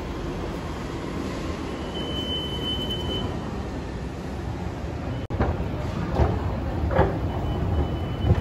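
Steady running rumble of a public transit vehicle, with a thin high whine for about a second, two seconds in. After about five seconds the noise turns uneven, rising and falling in short swells.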